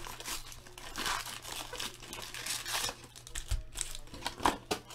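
Foil wrappers of Bowman Chrome baseball card packs crinkling in irregular crackles as the packs are handled and pulled from the hobby box.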